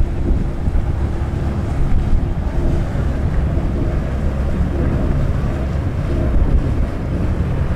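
Wind buffeting the microphone: a steady low rumbling noise with a faint hum beneath it.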